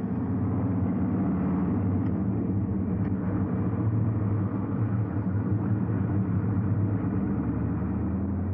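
Truck engine running with a steady low rumble, as a radio-drama sound effect of the truck driving.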